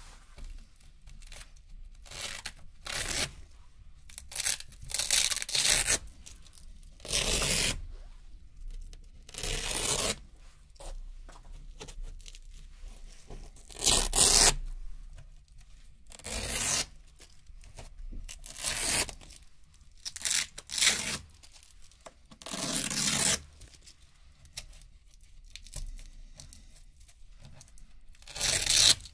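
Small Velcro (hook-and-loop) strips being peeled off a fuzzy fabric board one at a time: about a dozen short, crisp ripping crunches with quiet gaps between. The loudest comes about halfway through.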